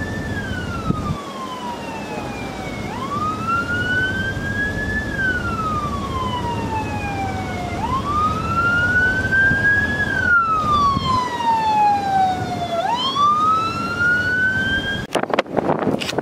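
Siren wailing, its pitch sliding up quickly and falling slowly about every five seconds, over low wind noise. It cuts off suddenly about a second before the end.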